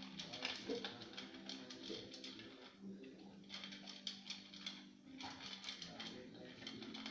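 Dog eating dry kibble from a bowl: fast runs of crisp crunching and clicking, with brief pauses about three and five seconds in.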